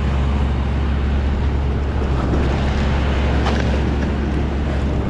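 A heavy engine running steadily, a low even rumble that holds the same level throughout.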